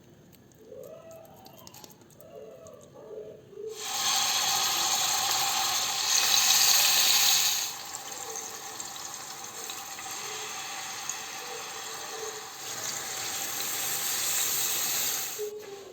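Kitchen tap running into a sink: the water comes on about four seconds in, runs hardest for a few seconds, then steadier, and shuts off just before the end.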